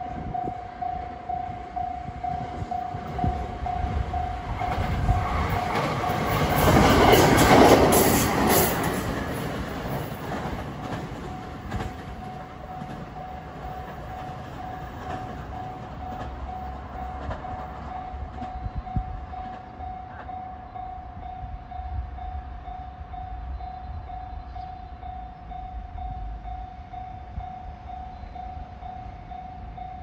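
A 521 series electric multiple unit passes a level crossing, its running noise swelling to a peak about seven to eight seconds in and then fading. Under it, the crossing's alarm bell rings steadily in a quick repeating high ding.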